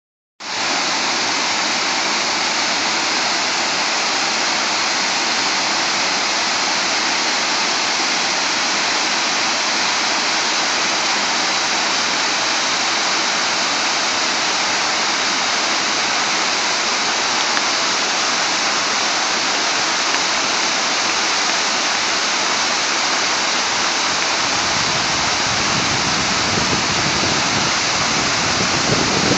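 Waterfall rushing steadily, an even hiss of falling water; a deeper rumble joins in from about 24 seconds.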